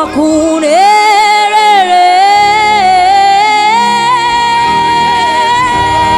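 Gospel worship singing with backing music: a singer slides up into one long high note and holds it, wavering a little at first and then steady.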